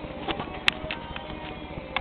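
A few sharp metallic clicks and clinks of hand tools on engine hardware, one much louder about two-thirds of a second in and another near the end, over faint music.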